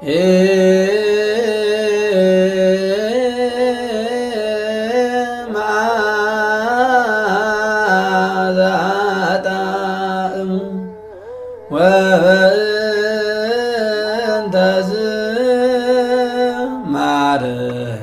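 Ethiopian Orthodox liturgical chant: voices singing long, wavering melismatic notes, with a short pause about two-thirds of the way through before the chant resumes.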